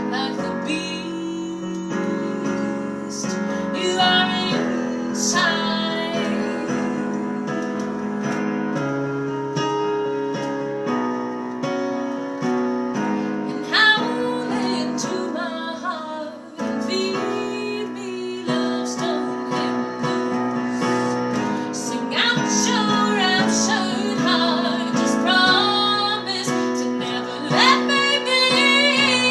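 A woman singing a jazz song over piano chords. Her melody lines glide and bend above the sustained chords.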